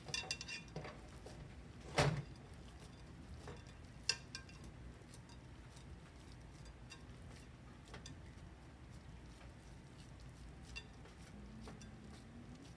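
Hands shaping raw sausage meatloaf mixture in a glass baking dish: faint handling of the meat with a few sharp knocks and clicks against the glass, the loudest about two seconds in and another about four seconds in.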